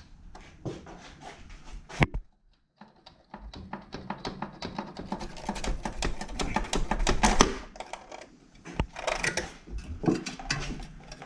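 Rapid runs of clicking from hand tools being worked on the car, with a single sharp knock about two seconds in.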